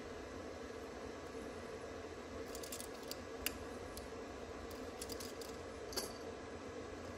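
A handful of light, sharp clicks and small metallic jingles, scattered from about two and a half seconds in to about six seconds, the last one ringing briefly. Under them is a steady low hum.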